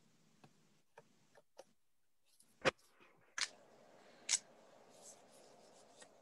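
Fingernails picking and scratching at the edge of a sheet of patterned craft paper, trying to lift its backing: a few light ticks, then three sharp clicks about a second apart and one more near the end.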